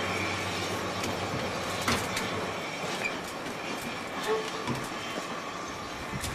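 JNR DE10 diesel locomotive moving slowly through station points, its engine running with a steady low hum and sharp wheel clicks over the rail joints, a pair about two seconds in and another near the end.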